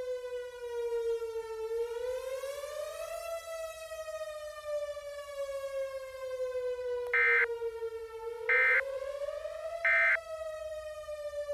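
Civil defense siren wailing, its pitch slowly falling and rising twice. Three short, louder electronic beeps cut in near the end, about a second and a half apart.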